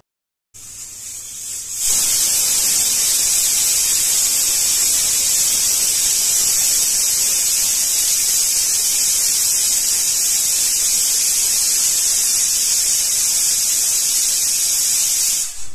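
Pelican aluminium pressure cooker whistling: steam jets out past the weight valve with a loud, steady, high-pitched hiss that builds up over about a second and then cuts off near the end. This whistle shows that full pressure has been reached, and cooking is timed by counting these whistles.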